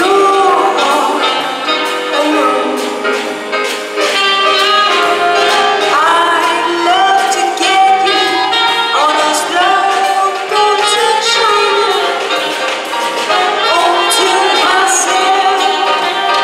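Live jazz band playing: saxophone, drum kit, electric bass and keyboard, with a female singer.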